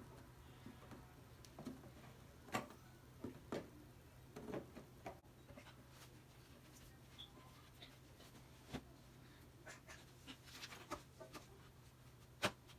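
Faint, scattered knocks and clicks of kids' desk frame parts being handled and fitted together, over a low steady room hum.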